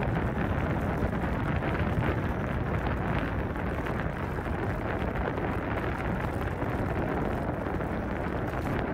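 Wind buffeting the microphone and tyres rumbling on a rough road as a T88-Plus electric scooter is ridden along; a steady, deep rush of noise.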